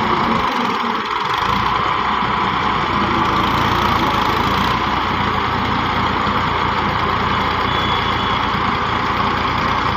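Massey Ferguson 135 tractor's diesel engine running steadily while it drives the hydraulic front loader that scoops and lifts a bucket of sand.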